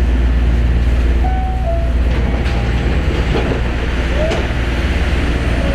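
Osaka Monorail 3000-series train heard from inside the car: a steady low running rumble with a few sharp clicks and a couple of brief squeaks, as it slows for its final stop at the terminus.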